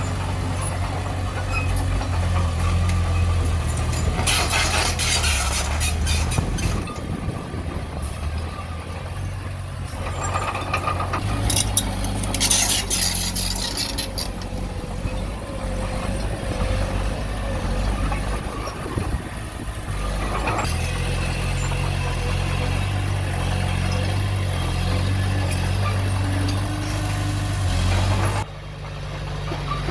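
Diesel engine of heavy earthmoving equipment running steadily, its pitch shifting at times, with two spells of hissing noise about four and twelve seconds in, and an abrupt drop near the end.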